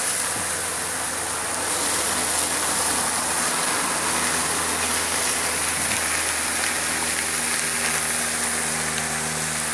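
Turkey bacon sizzling on a hot propane griddle's steel top: a steady hiss that grows louder about two seconds in as more strips go down, with a faint low hum underneath.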